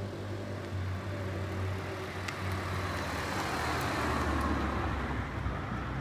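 A car passing by, its road noise swelling to a peak about four seconds in and then fading, over a steady low hum.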